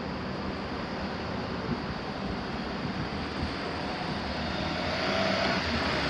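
Road traffic: small cars pulling away and driving over the railway crossing, the engine and tyre noise growing louder toward the end.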